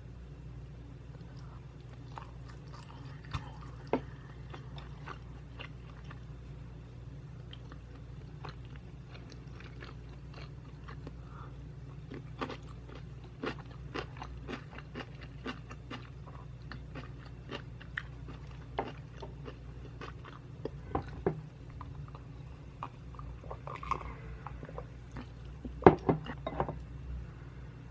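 Close-miked chewing of butter jangjorim bibimbap, rice mixed with soy-braised beef, with many short sharp mouth clicks and smacks. The loudest cluster comes near the end. A steady low hum runs underneath.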